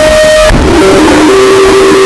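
Harsh noise music: a loud, saturated wall of distorted noise with a steady droning tone on top that breaks off about half a second in and comes back lower.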